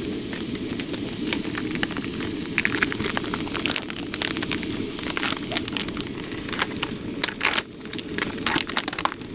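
Sausages sizzling and spattering on a hot portable griddle, with irregular sharp crackles, mixed with the crinkling of a plastic sausage package being opened and handled. A steady low hum runs underneath.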